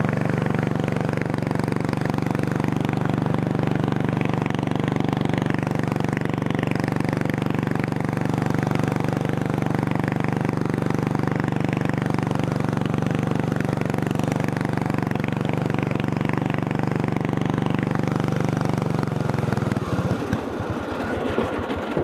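400cc engine of a racing lawn mower running steadily at a constant speed, then near the end slowing into separate firing pulses and dying out as it stalls. The owner puts the stall down to a stick caught in the drive chain, on a carburetor that leaks gas and is not tuned right.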